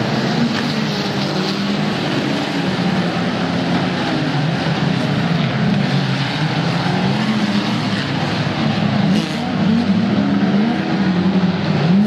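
Engines of a pack of banger racing cars running together, several revving up and down at once so their pitches rise and fall and overlap.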